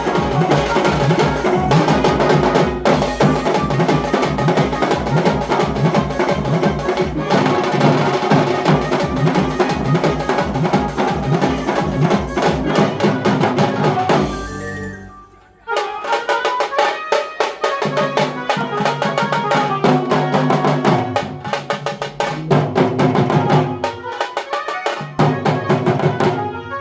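Tasha drum band playing fast, driving drumming with a melody carried over it. About halfway through the sound drops away almost to nothing for a second or so, then the band comes back in.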